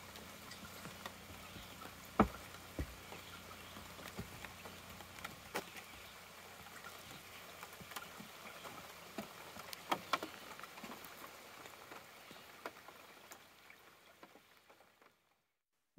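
Light rain falling on a pond: a faint, steady hiss with scattered louder drops. It fades out near the end.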